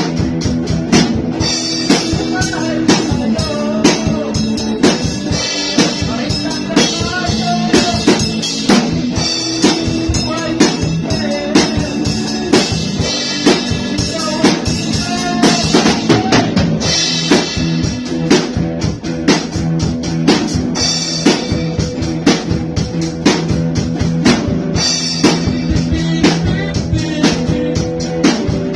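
A band playing an instrumental passage: drum kit keeping a steady beat with guitar and bass.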